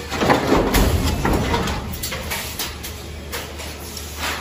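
Automated metal stamping press line running: a press stroke near the start brings about two seconds of clanking and rattling over a steady low machine hum, which then dies back to scattered clicks.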